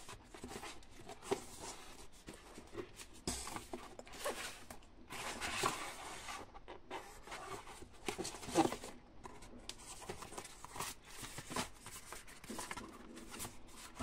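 Hands handling a DVD box set: a slip cover and fold-out cardboard digipak being opened and shuffled, with scattered rustles, scrapes and light clicks. A couple of louder handling knocks come about halfway through.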